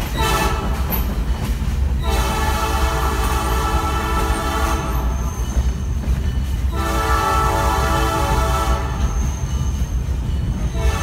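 Train horn sounding long, sustained blasts, the clearest beginning about two seconds and about seven seconds in, over the steady low rumble of the train running along the track.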